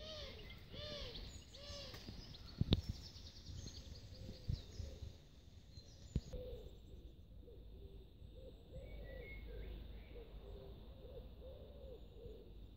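A pigeon cooing outdoors in repeated phrases of low, arched hoots, one phrase at the start and a longer one from about halfway on. Faint songbird chirps run underneath, and a sharp knock comes about three seconds in.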